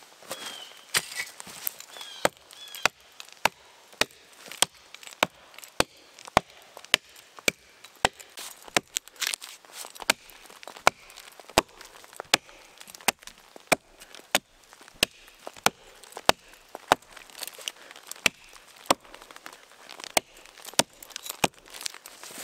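Axe chopping into the end of a log, a steady run of sharp strikes about two a second, cutting away wood where the saw bound in the cut.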